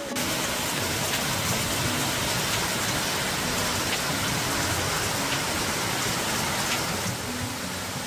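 Steady rushing water from a rocky waterfall cascading over boulders and a weir, mixed with falling rain. It sets in abruptly at the start and eases slightly near the end.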